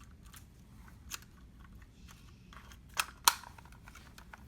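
Plastic label gun being handled during refilling: scattered light ticks and clicks, with two loud sharp clicks in quick succession about three seconds in.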